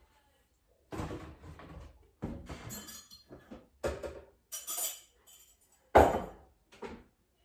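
Glasses and crockery clinking and knocking together in about six separate bouts, with short silent gaps between them: dishes being gathered up and stacked.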